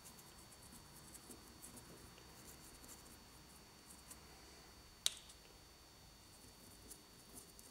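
Faint scratching and dabbing of a fine paintbrush wet with black wash on a textured model rock face, with one sharp click about five seconds in.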